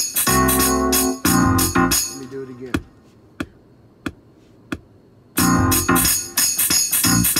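A hip-hop beat played from an Akai MPC 2000 sampler and keyboard, with organ-like keyboard chords over bass. It stops about two and a half seconds in, leaving four evenly spaced clicks, then the beat starts again.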